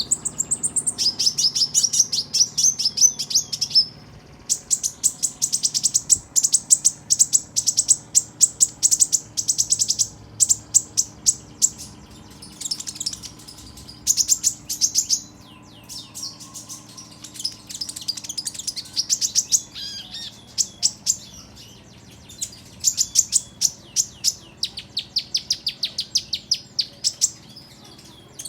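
Olive-backed sunbird (kolibri ninja) singing: rapid runs of high, thin chirps, each run lasting a second or two and repeated again and again with short pauses.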